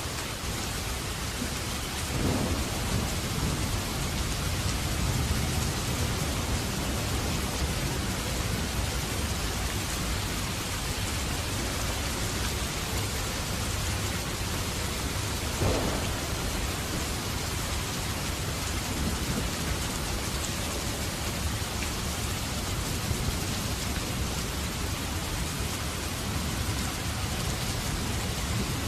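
Steady, dense rainfall with rolling rumbles of thunder. A sharper thunder clap comes a little past the middle.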